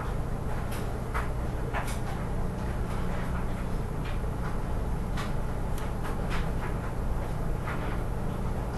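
Steady low hum of room or recording noise, with scattered faint clicks and taps.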